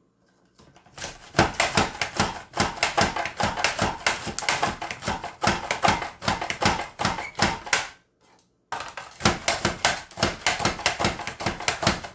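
Red bell pepper quarters being sliced in a Pampered Chef Rapid Prep Mandoline: a fast run of crisp clicks and crunches, several a second, as the pusher is worked down again and again. There is a short break about eight seconds in, then the clicking resumes.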